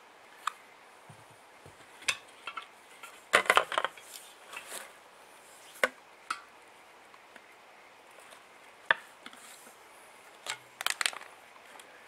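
Metal tyre levers clinking and clacking in scattered sharp knocks against each other and the alloy rim while the tyre bead is levered off a little at a time. There is a busier cluster about three and a half seconds in and another near the end.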